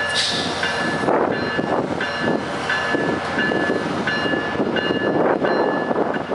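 Safetran Type 3 electronic crossing bell dinging steadily, about three strikes every two seconds, over the rumble of a MARC commuter train at the crossing.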